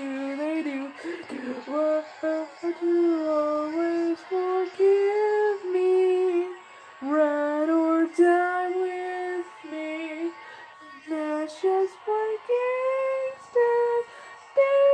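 A single voice singing a wordless melody unaccompanied, in held notes broken into short phrases with brief pauses between them.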